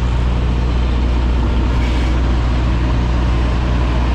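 Tractor-trailer's diesel engine running steadily at low speed during a slow backing manoeuvre, a constant low hum under a broad hiss.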